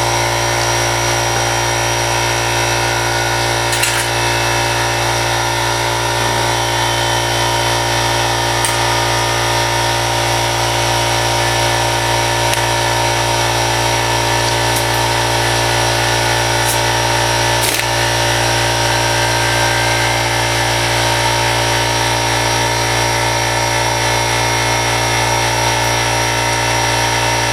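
Power tool running steadily on an axle nut, with the whole shaft spinning along with the nut instead of the nut coming loose. A couple of brief clicks sound over it, one about 4 seconds in and one about 18 seconds in.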